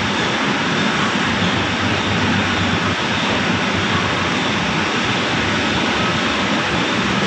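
A loud, steady mechanical rushing noise with a faint low hum beneath it, even and unbroken.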